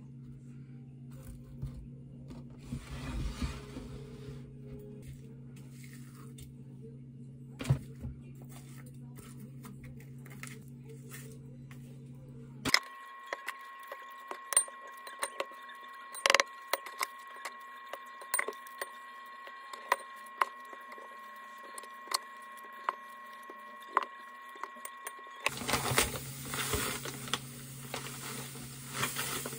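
Scattered soft clicks and taps of a metal spoon scooping passion fruit pulp from the shells into a glass bowl, at first over a steady low hum. Near the end, sugar is poured onto the pulp in the bowl with a rushing hiss of grains.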